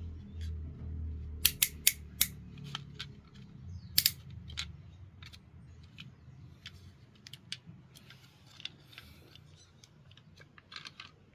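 Hard clicks and clacks of small toy vehicles being handled, over a low hum that fades out in the first few seconds.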